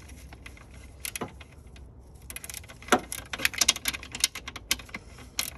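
Metal hand tools, sockets and a wrench, clinking and clicking as they are handled, with a quick run of sharp metallic clicks and rattles from a little before halfway to near the end.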